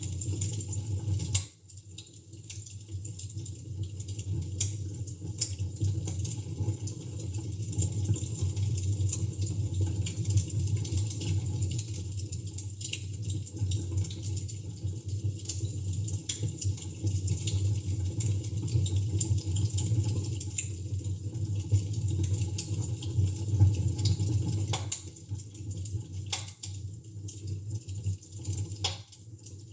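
Fire crackling in a fireplace: irregular sharp pops and snaps over a steady low rumble.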